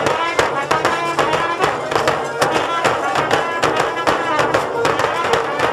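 Village folk band playing a lively tune: held trumpet and accordion notes over quick, even bass drum beats.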